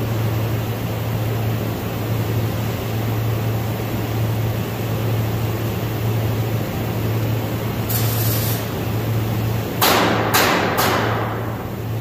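MIG welding setup running as a steady hiss over a low hum. A short high hiss comes about eight seconds in, then three sharp knocks in quick succession from about ten seconds in.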